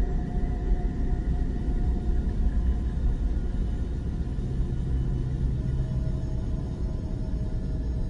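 Deep, steady rumbling drone with faint held tones above it, a lower tone coming in about five seconds in: an audio track billed as the sound of the Earth recorded by NASA.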